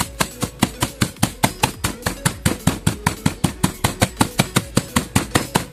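Claw hammer pounding dried eggshells in a plastic bag against a concrete surface, rapid even blows about five a second, crushing the shells down to small grit.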